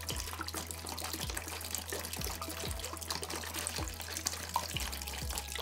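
Water pouring slowly from an upside-down plastic soda bottle into a plastic tub: a steady trickling splash, with air bubbling up into the bottle as it empties.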